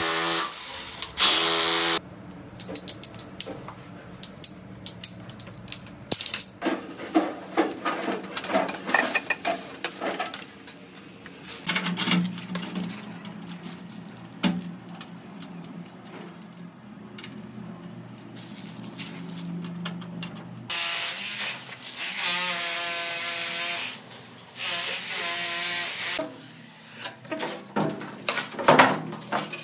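A rotary hammer drill boring into a concrete wall in two short bursts, stopping about two seconds in. Then scattered knocks and clicks of hand work, and a power tool running steadily for about five seconds after the middle.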